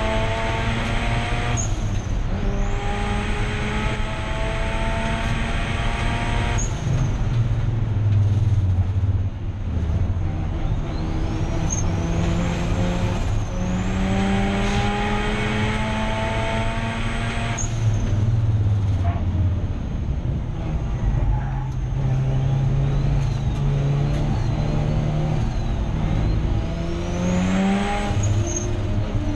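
Turbocharged Mazda 13B rotary engine of an RX-8 race car running hard on track. Its pitch climbs under acceleration and drops back sharply at each gear change or lift, several times over.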